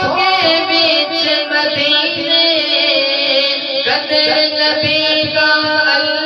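A man singing a naat into a hand-held microphone, drawing out long wavering notes, with a new phrase starting about four seconds in.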